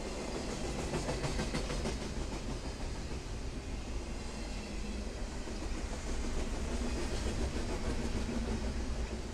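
Double-stack intermodal container cars rolling past at speed: a steady noise of steel wheels on the rails, with a brief run of quick clicks about a second in.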